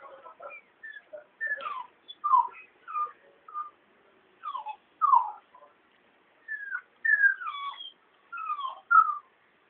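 Newborn puppies whimpering: short, high squeaks that each slide down in pitch, coming in irregular clusters with brief pauses.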